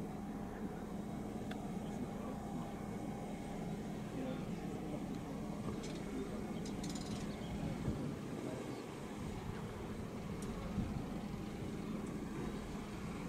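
Steady low hum of a running engine, with a few faint clicks over it.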